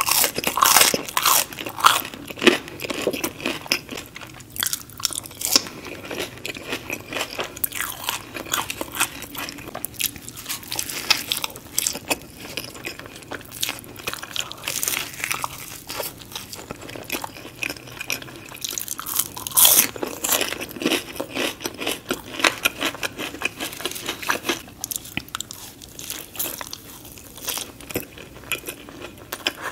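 Close-miked eating: crisp crunching bites and steady chewing, first of a French toast stick and then of a croissant breakfast sandwich with egg, ham and cheese. The louder bites come in clusters near the start and about two-thirds of the way through.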